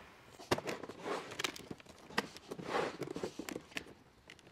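Black absorber pipe being pressed by hand into the clips of a conical aluminium frame as the coil is worked round: scattered sharp clicks and taps with soft rustling.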